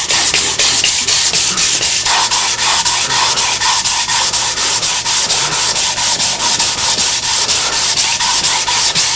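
180-grit garnet sandpaper rubbed by hand along the grain of a wooden box top in quick, even strokes, about five a second. It is the final smoothing pass before finishing.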